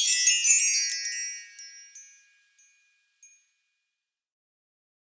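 Bright, high-pitched tinkling chimes, many notes ringing together, that fade out about two seconds in, with a couple of faint last notes after.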